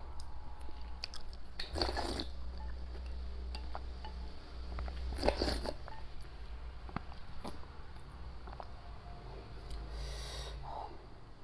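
Close-miked mouth sounds of a person eating rice porridge and spicy fermented tofu: soft chewing and small clicks, with three short slurps from the porridge bowl, about two, five and ten seconds in.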